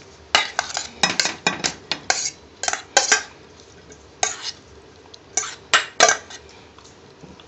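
Dishes and kitchen utensils clinking and knocking against a bowl: a quick irregular run of sharp clinks, a short pause, then a few more clinks.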